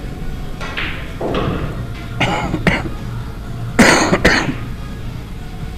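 A person coughing in three short bouts, the loudest a little under four seconds in, over steady background music.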